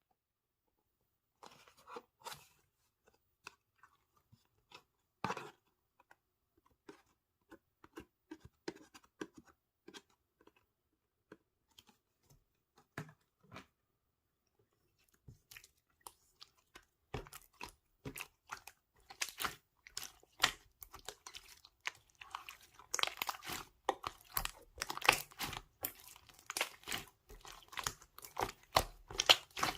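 Clear slime being squeezed and poked by hand, giving sticky clicks, pops and crackles: only scattered ones at first, then a dense run of them from about halfway through.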